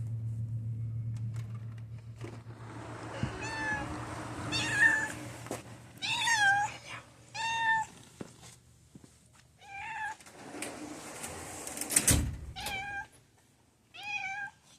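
A cat meowing over and over, about seven drawn-out meows spaced a second or two apart. A low steady hum sits under the first few seconds, and there is a single loud thump about twelve seconds in.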